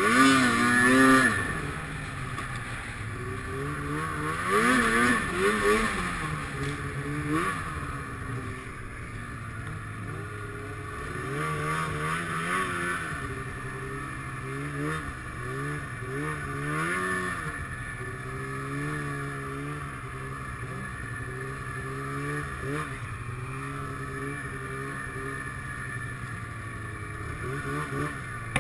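Snowmobile engine heard from the rider's helmet, its pitch rising and falling again and again as the throttle is opened and eased through deep snow, loudest about a second in and again around four to six seconds in.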